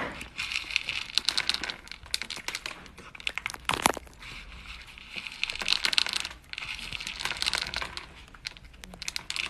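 A cat eating dry kibble, scooping pieces out of a plastic bowl with its paw: a run of irregular crisp crunches and clicks of kibble rattling against the bowl and being chewed.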